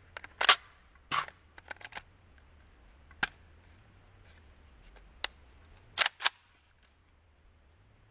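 A series of sharp mechanical clicks and clacks at irregular intervals, the loudest about half a second in and a close pair around six seconds.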